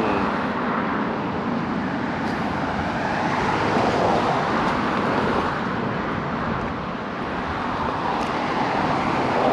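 Steady road traffic noise, a continuous even rush of passing cars.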